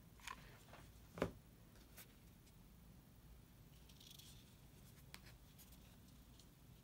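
Near silence broken by a few light taps and clicks, the sharpest a little over a second in, and a brief faint rustle a few seconds later, as stiff felt-backed faux leather bow pieces are handled over a cutting mat.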